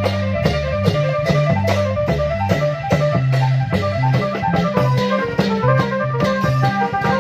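Klong yao long-drum band music: a driving drum beat about twice a second under a steady bass line and a busy plucked, keyboard-like melody.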